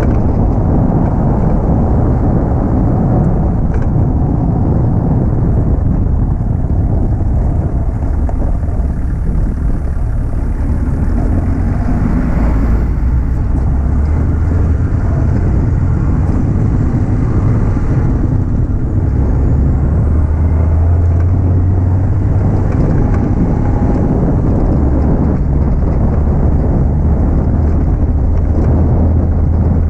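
Driving noise heard from beneath a moving Nissan Patrol GQ at its front axle: tyre and road noise with a steady low drone, over loose limestone gravel near the middle.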